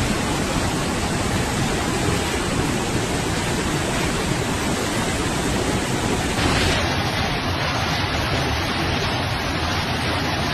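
Flooded river rushing past, a loud, steady roar of fast water.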